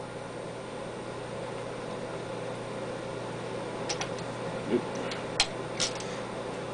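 Light metallic clicks and taps, four or so in quick succession after about four seconds, as a hand tool and small parts are handled on the Kohler Command engine, over a steady low hum.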